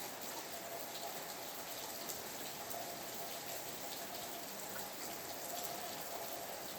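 Steady rain falling, with many small drops ticking against a surface.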